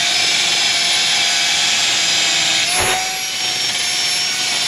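Cordless drill spinning a wire wheel, scrubbing rust out of a truck steering knuckle's hub-bearing bore: a steady whine over a scratchy hiss. A short knock comes just under three seconds in, as the wheel comes out of the bore and spins free.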